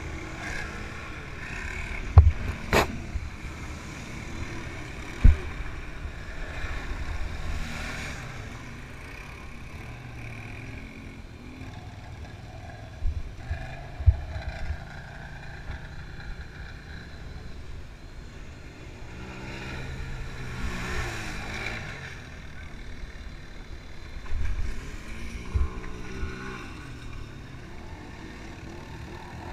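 Quad bike (ATV) engines running and revving, rising and falling in pitch around twenty seconds in and again near the end, with a few sharp knocks in the first part.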